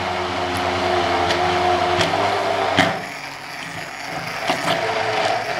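Hand-held immersion (stick) blender running in a plastic beaker, puréeing basil leaves and olive oil into pesto: a steady motor whine over the churning of the mix, with a couple of clicks. It eases off a little about three seconds in, then picks back up.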